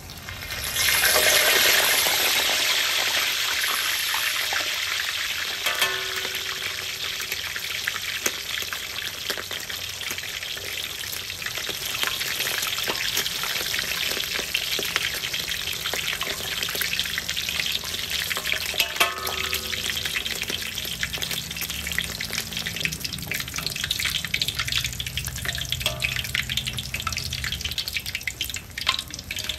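Slab of pork belly lowered into hot oil in a wok for its second fry to crisp the skin (Thai moo krob). The oil bursts into loud sizzling about a second in, then keeps frying with a dense bubbling hiss and constant fine crackle that eases off a little.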